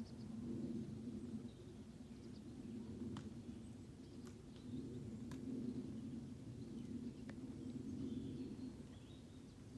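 Faint steady outdoor background noise with a few soft clicks and occasional faint bird chirps.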